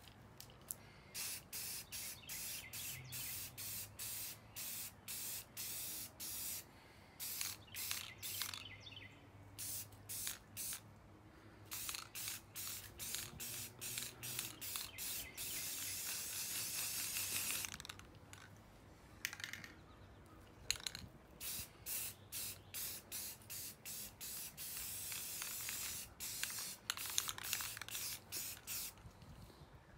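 Aerosol spray-paint can spraying in many short passes, about two hisses a second, with two longer steady sprays, one around the middle and one later on.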